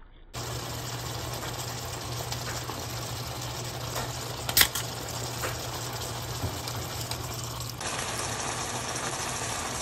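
Beef skirt steak and sliced onions sizzling in a frying pan, a steady hiss that starts abruptly just after the start, with a low steady hum under it. One sharp click about halfway through.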